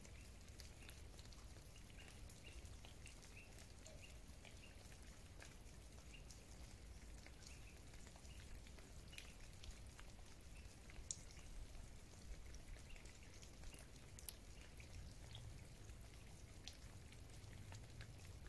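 Near silence: faint outdoor ambience with a low steady rumble and scattered faint ticks, a few slightly louder ones in the second half.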